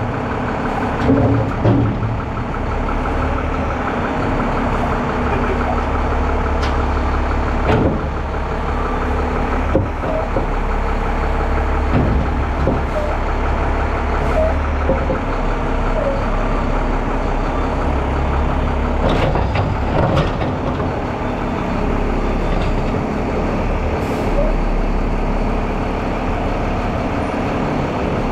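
Front-load garbage truck's diesel engine running steadily while it services a dumpster, with several sharp metal bangs and clanks from the dumpster and lift arms during the pickup.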